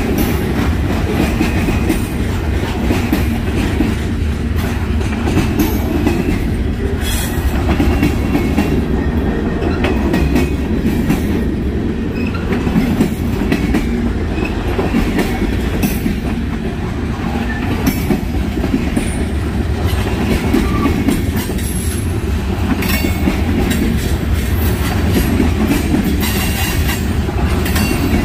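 Freight train cars rolling on the rails: a steady low rumble with a few sharp clicks and clanks scattered through it.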